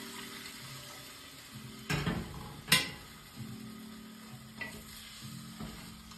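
Water poured from a kettle into a cast-iron stew pot, the stream tailing off, then two sharp knocks as the kettle is set down on the gas stove's metal grate.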